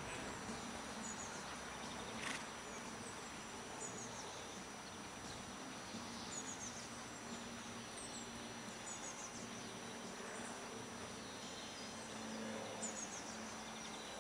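Open-air ambience with small birds chirping in short high twitters every second or two, over a faint steady high whine.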